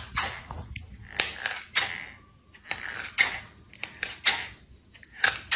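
A cat biting and gnawing at the toe of a foam rubber slide sandal, a series of short, sharp bites about one or two a second.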